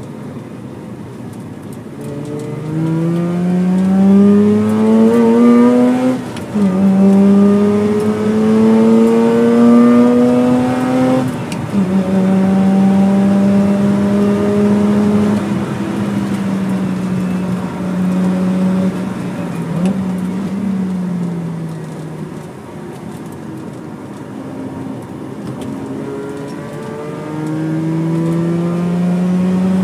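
Mazda RX-8's twin-rotor Renesis rotary engine, heard from inside the cabin, under hard acceleration on track. The revs climb, drop at an upshift about six seconds in, climb again to a second upshift near eleven seconds, and hold high. The engine then comes off throttle with a blipped downshift around twenty seconds and picks up again near the end.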